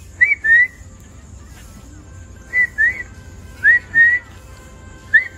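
A person whistling to call a dog: four pairs of short, rising two-note whistles spread through the stretch.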